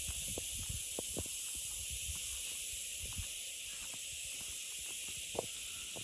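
Steady, high-pitched shrill drone of an insect chorus, unbroken throughout, with a few faint soft knocks underneath.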